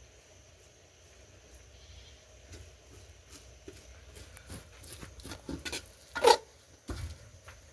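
A brief animal call about six seconds in, over faint scattered knocks and clinks.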